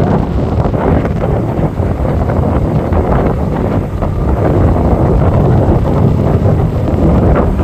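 Strong wind buffeting the microphone: a loud, steady low rumble with no clear tone.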